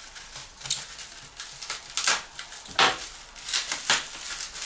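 Plastic packaging crinkling and rustling as a small part is unwrapped by hand, with irregular sharp crackles.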